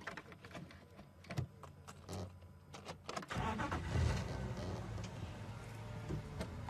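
Safari game-drive vehicle's engine starting up about halfway through, after a few sharp clicks, then running steadily as the vehicle moves forward.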